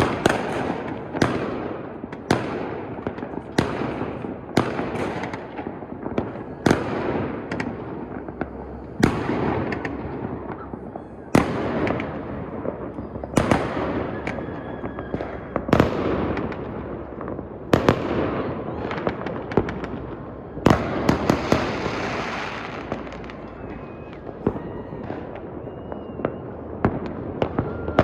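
New Year's fireworks display: sharp bangs every one to two seconds, with crackling and rumbling between them.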